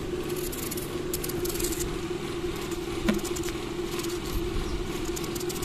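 A steady motor hum runs throughout, with faint scraping and clicking of a knife scraping the ridged skin off a bitter gourd and one sharper click about three seconds in.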